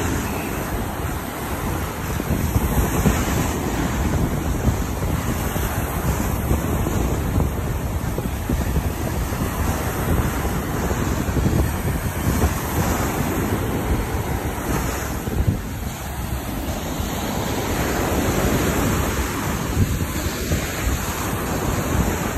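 Small sea waves breaking on the shore and washing up the sand, a steady rushing surf that swells and eases, with wind buffeting the microphone.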